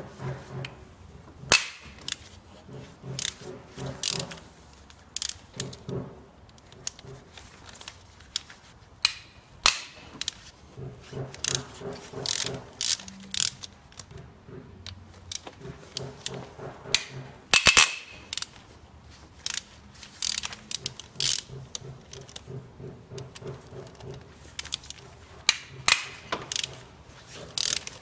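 Ratchet wrench clicking in quick runs as the cylinder head bolts of a Kia Picanto engine are broken loose one by one through a long extension and hex socket. A few sharp cracks come as the tight bolts let go, the loudest about two-thirds of the way through.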